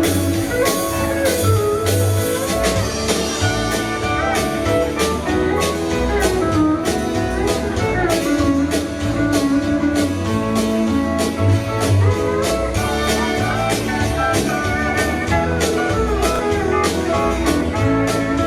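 Live country band playing an instrumental break, a guitar carrying the melody over a steady drum beat.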